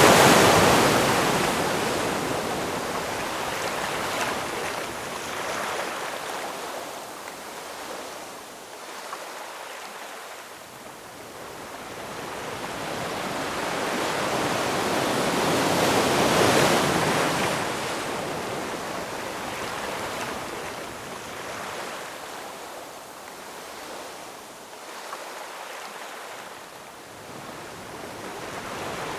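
Ocean surf: waves breaking and washing in, a loud crash right at the start that slowly dies away, the next wave building to a crest about sixteen seconds in and receding, with the hiss of moving water between.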